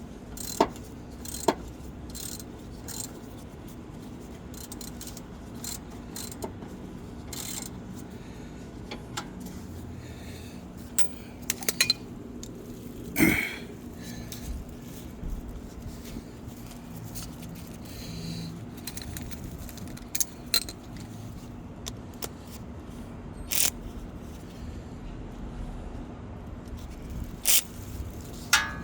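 Hand tools on car suspension: scattered metallic clinks, taps and scrapes of wrenches and sockets while a sway bar link is being unbolted, over a steady low hum.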